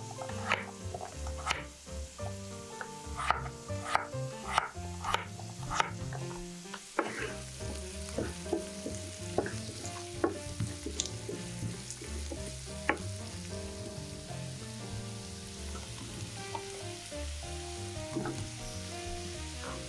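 Kitchen knife chopping raw potato on a wooden cutting board, sharp knocks about every half second for the first six seconds. Then carrots and onion sizzle in oil in a frying pan, stirred with a wooden spatula, and potato cubes are dropped into the pan near the end.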